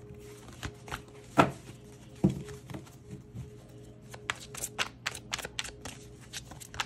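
A tarot deck being shuffled by hand: a run of soft, quick card clicks, with two louder knocks about one and a half and two and a quarter seconds in.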